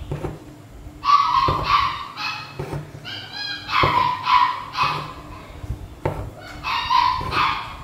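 A dog yapping in runs of short, high-pitched barks, starting about a second in.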